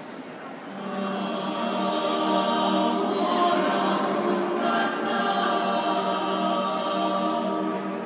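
Mixed choir of men's and women's voices singing a cappella in held chords, coming in about a second in and swelling, then easing off at a phrase end near the end.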